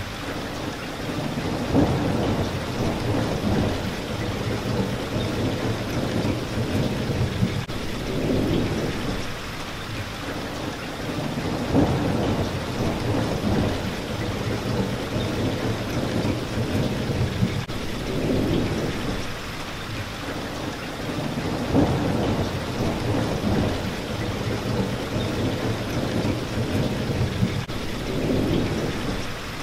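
Steady rain hitting a window pane, with low rumbles that swell and fade every few seconds.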